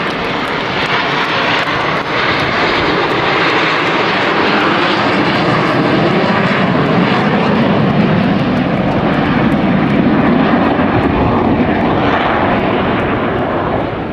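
Formation of Aermacchi MB-339 jet trainers passing overhead: a loud, continuous jet roar that builds to its loudest past the middle and eases off near the end.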